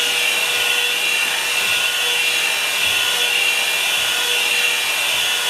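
Revlon hot-air blow-dry brush running steadily, blowing air with a constant hiss and a faint steady whine.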